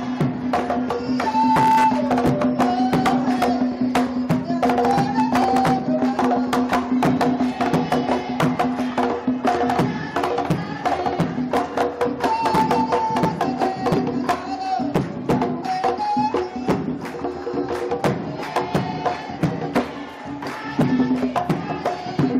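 Folk-style music with a fast, steady percussion beat and a melody over a held low note.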